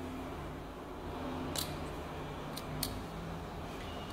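Three faint, sharp clicks from the stylus of a Mitutoyo dial test indicator with a one-way clutch being pushed by a finger: one about one and a half seconds in, then two close together a second later. A low steady room hum lies underneath.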